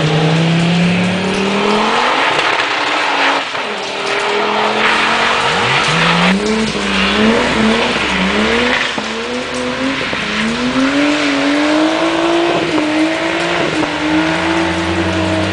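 Car engine revving up and down repeatedly as the car is drifted, the revs rising and dropping in short sweeps, then climbing in one long rise about two-thirds of the way through and holding high.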